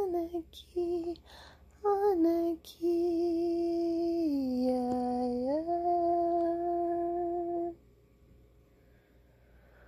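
A woman's voice chanting without words. It sings a few short syllables, then holds one long note that drops lower partway through, returns to its first pitch and stops, leaving near silence for the last two seconds.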